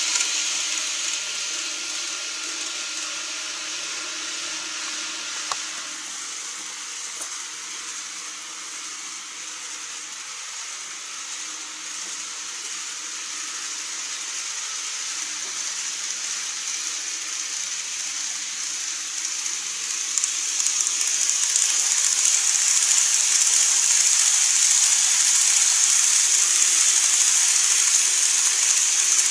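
N-gauge model train running on its track: a steady high hiss of wheels and motor, with a faint whine for the first few seconds. The hiss grows louder about two-thirds of the way through as a train comes close.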